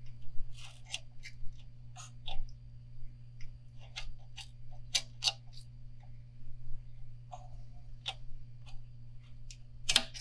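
Small scissors snipping and clicking in irregular short ticks while trimming fiberglass wrapping tape and thread on a rod blank, over a steady low hum.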